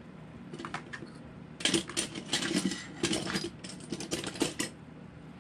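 Small metal hand tool and metal parts clicking and clinking together as they are handled, in a quick irregular run of sharp clicks from about one and a half seconds in until near the end.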